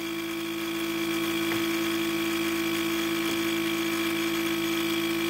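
Steady electrical buzz at a constant pitch from the Ford F-250 with the ignition key on and the engine off, a little louder from about a second in.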